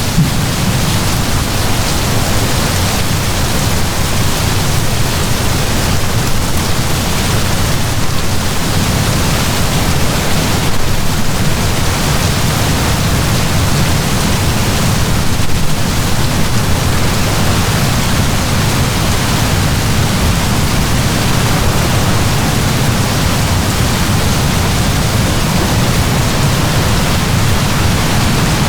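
Heavy rain falling in a steady downpour, a dense even hiss with a deep rumble underneath and no separate drops standing out.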